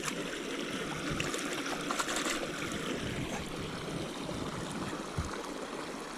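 Mountain creek water running steadily over rocks, briefly louder about two seconds in.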